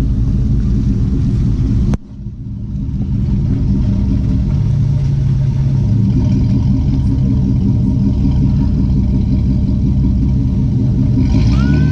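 Off-road vehicle's engine and exhaust running low and steady under light throttle. The sound cuts off abruptly about two seconds in, then comes back and swells slightly.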